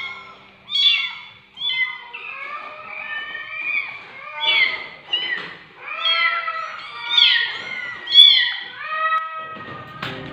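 Kittens meowing over and over, high arching calls that sometimes overlap at different pitches, falling quiet shortly before the end.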